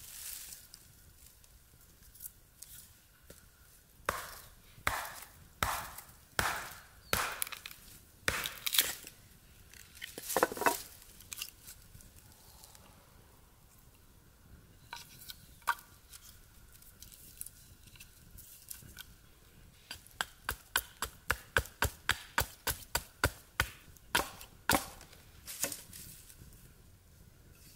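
Hatchet chopping into a short log section, splitting it. There is a run of sharp, spaced chops from about four to eleven seconds in, and a faster run of strikes, about three a second, from about twenty to twenty-five seconds in.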